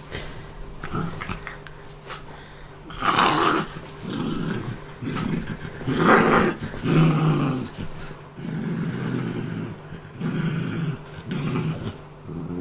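Small terrier-cross dog growling in repeated rumbles over its chew toy, a guarding growl at being bothered. There are two louder, harsher outbursts about three and six seconds in.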